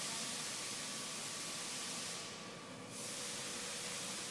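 A steady hiss that stops about two seconds in and starts again under a second later.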